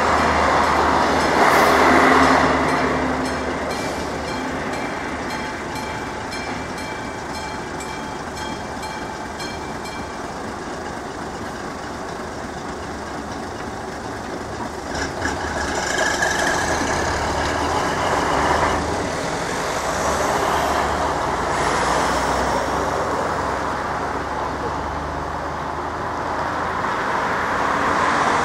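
Railway level-crossing warning bell ringing with regular strokes, under a passing train's rolling rumble that is loudest about two seconds in. The bell stops about ten seconds in as the barriers lift, and road vehicles, a truck among them, then start up and drive across.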